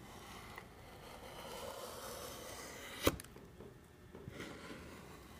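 Nib of an acrylic paint marker rubbing and scraping along the edge of a painted prop leaf: a faint scratchy stroke that swells through the first couple of seconds. A single sharp knock about three seconds in.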